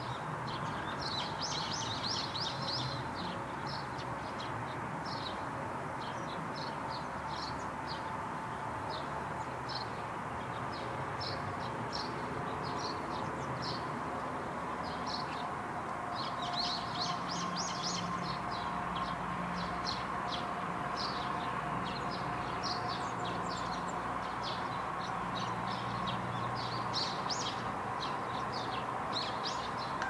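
Small birds chirping in quick short calls again and again, over a steady background hiss of outdoor noise.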